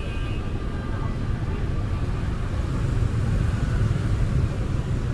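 Busy street traffic: motorbike and car engines running past in a steady low rumble that swells a little about three seconds in.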